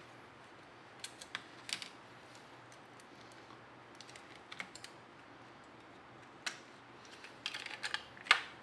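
Light clicks and taps from handling small smartphone parts: an opened iPhone 6 Plus and its display assembly being moved about on a workbench with gloved hands and tweezers. The clicks are scattered, with a quicker cluster near the end.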